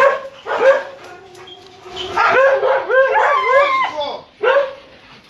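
Dogs barking and yipping: two short barks at the start, a quick run of high rising-and-falling yips in the middle, and one more bark near the end.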